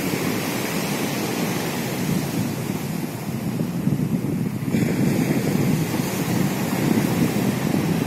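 Stormy sea surf breaking and washing up a pebble beach, a steady rushing wash of waves, with wind buffeting the microphone.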